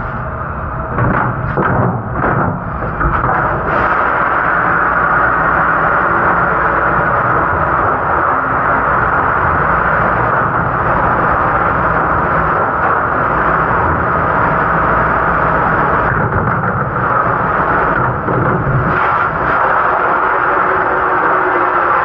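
Steady wash noise of a commercial dish room, the dish machine and running water, with a few metal clanks in the first few seconds as a sheet pan is handled.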